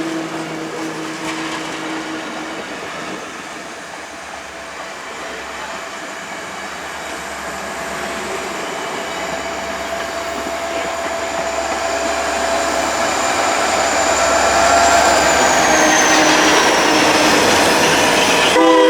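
Train running by and growing louder, with steady metallic tones and a high wheel squeal that slides down in pitch near the end; a horn sounds briefly just at the end.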